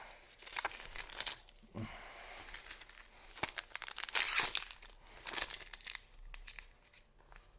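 Trading card booster pack wrappers crinkling and tearing as packs are opened, in irregular rustling bursts, loudest about four seconds in.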